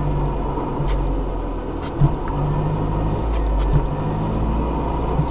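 Car engine running, heard from inside the cabin through a dashboard camcorder's microphone, with its steady low note shifting pitch now and then. A few short knocks and rattles come as the car rolls over a rutted track.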